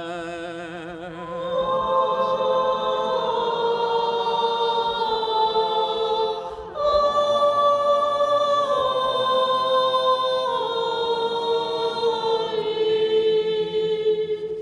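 Church congregation singing a cappella in long held notes. One wavering voice leads in, the other voices join about a second and a half in, and the singing breaks off briefly near the middle before the next phrase.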